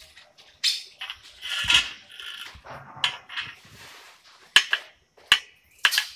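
Hand work on copper pipe and tools: irregular scraping and rustling, then three sharp clicks a little under a second apart near the end.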